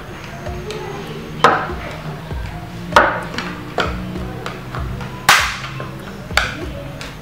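Sharp plastic clicks and snaps as a screwdriver pries around the edge of a Lenovo ThinkPad T470's bottom cover, its clips popping loose: four loud snaps a second or two apart, with fainter clicks between.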